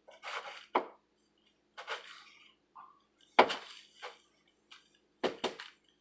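Crisped rice cereal treat mixture crunching and crackling in several short bursts as hands squeeze and pat it into shape, with a sharp knock about three and a half seconds in and two quick knocks near the end.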